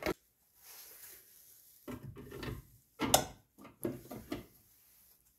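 Handling noises of a coolant expansion tank on its riveted aluminium bracket being fitted against the car body: a few short knocks and rubs, with the sharpest knock about three seconds in.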